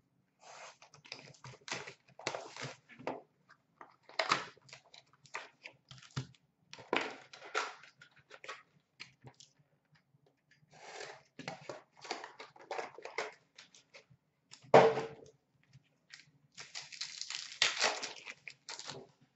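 Hockey card box and foil packs being opened by hand: irregular rustling, crinkling and clicking of cardboard and pack wrappers, with one louder sharp knock about 15 seconds in and a longer run of crinkling and tearing near the end.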